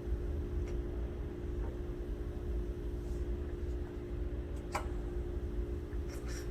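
A steady hum with a few light clicks and taps from small parts being handled during bench soldering work, the clearest tap a little under five seconds in.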